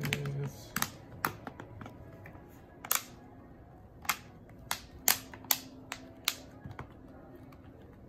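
Plastic back cover of a ZTE tablet clicking as its clips snap into the frame while it is pressed and squeezed around the edges: a string of about ten sharp, irregularly spaced clicks.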